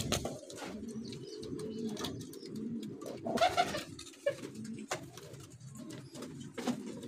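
Pigeons cooing steadily in a loft, a continual low pulsing coo. About three seconds in, a short flurry of wing flapping as a bird takes off from a hand.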